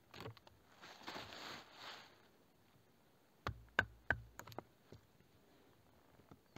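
Faint rustling for about two seconds, then a quick run of half a dozen sharp clicks and knocks.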